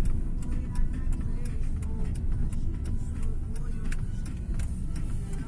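Car driving, heard from inside the cabin: a steady low rumble of engine and tyres, with frequent small clicks and rattles throughout.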